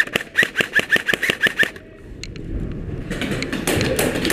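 Airsoft gun firing a rapid, even string of shots, about six or seven a second, each a sharp click with a short mechanical chirp, stopping abruptly a little under two seconds in.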